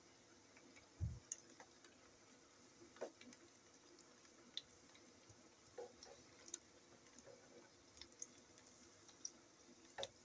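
Meatballs frying quietly in shallow oil in a frying pan: faint, irregular small pops and ticks of spattering oil, with a sharper click near the end as a fork touches the pan.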